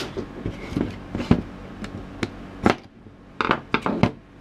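Plastic housing of an AEG 18V lithium-ion battery pack being handled and its side covers popped off the cell block: a string of separate sharp clicks, snaps and knocks, with a quick cluster of clicks near the end.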